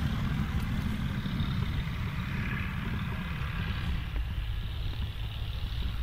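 Fiat 615DT tractor's diesel engine running steadily under load while pulling a plough, heard as a deep, continuous rumble.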